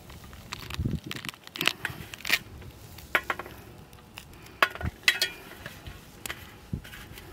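Irregular clicks, knocks and clinks of cooking work: utensils and dishes being handled, with a few sharper knocks around the middle.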